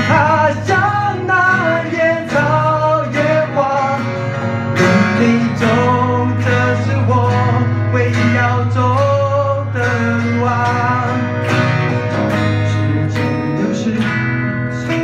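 Two acoustic guitars strumming a steady accompaniment while a man sings over them through a microphone, played live.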